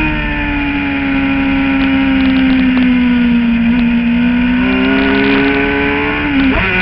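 Suzuki GSX-R750 inline-four engine at track speed: its note sags slowly through the first half, then climbs again as the bike drives on, with a short break in the note near the end.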